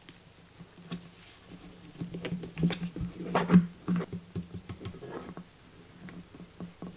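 Warmed liquid malt extract poured in a thick stream into an empty plastic fermenter bucket, landing with irregular soft splats and patter. The splats are busiest in the middle and thin out near the end as the stream dwindles to a trickle. A low steady hum runs underneath.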